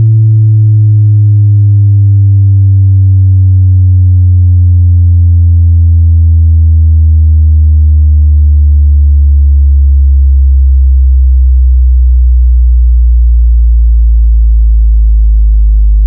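Synthesized bass test tone: a loud, deep, steady hum that slides slowly and evenly lower in pitch, with a few fainter overtones above it.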